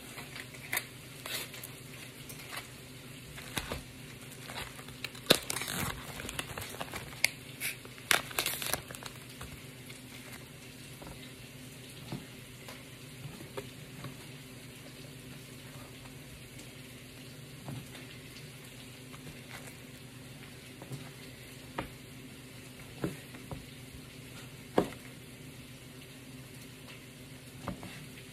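Chef's knife cutting beef into cubes on a cutting board, with scattered sharp knocks of the blade on the board and a dense flurry of knocks and handling noise about five to nine seconds in. Underneath, a steady sizzle of peppers frying in a pot.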